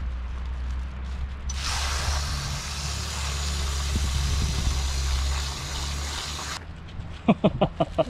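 Water running from a campground spigot into a plastic bag of cherries. It starts about a second and a half in and cuts off suddenly about a second and a half before the end, over a steady low hum.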